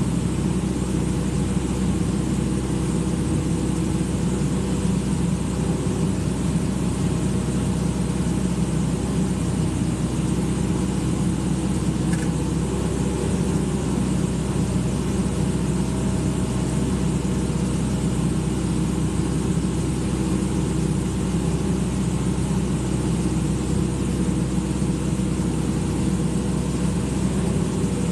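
Excavator's diesel engine running steadily at an unchanging pitch and level.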